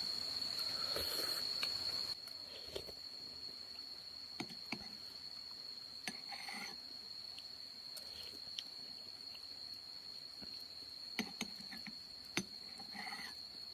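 An insect, likely a cricket, trilling steadily at one high pitch. A few small clicks and knocks are heard now and then.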